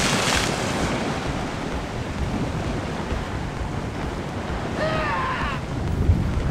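Sea waves washing against a rocky shore, with wind buffeting the microphone; a wave surges in with a hiss right at the start. About five seconds in, a short call falling in pitch sounds briefly over the surf.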